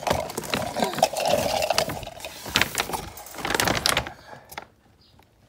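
Dry dog food being scooped with a cup, a busy run of rattling clicks and scrapes that dies away about four seconds in.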